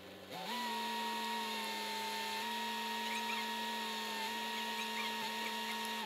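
A machine whine with a clear pitch that winds up quickly to a steady speed. It holds for about five and a half seconds, with a slight dip partway through, then winds down at the end, over a lower steady engine hum.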